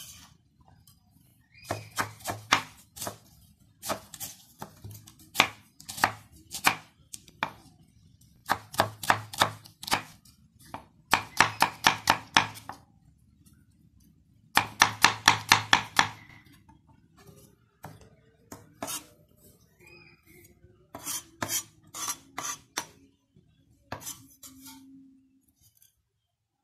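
Kitchen knife chopping a red onion on a round wooden chopping block: runs of quick knife strokes on the wood, up to about seven a second, broken by short pauses.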